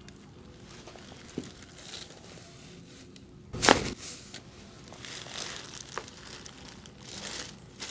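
Crinkling and rustling as a patient is moved on a chiropractic treatment table, with a few small clicks. About three and a half seconds in comes one loud, sharp crack: a joint popping under a chiropractic adjustment.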